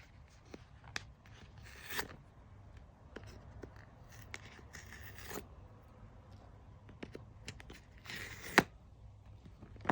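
Earbuds' retail box being unboxed by hand: small clicks and taps with three short scraping, tearing sounds, and a sharp snap near the end.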